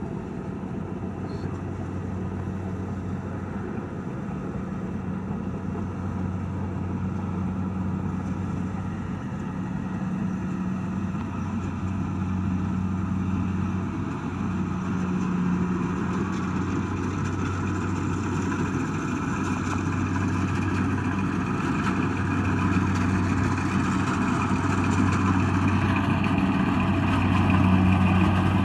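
Diesel engine of a Kubota DC70 Plus combine harvester running steadily at working speed, with a low hum and mechanical clatter, growing gradually louder.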